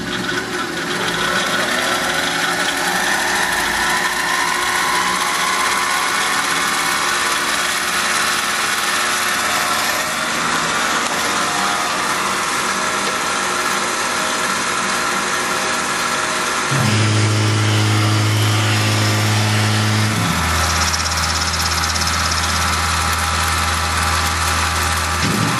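Tormach PCNC 1100 CNC mill running as a Duality lathe on a test part: steady machine running with many fixed tones, its whine rising in pitch over the first few seconds and then holding. About two-thirds of the way in a loud low hum joins, drops to a lower pitch a few seconds later, and breaks off briefly near the end.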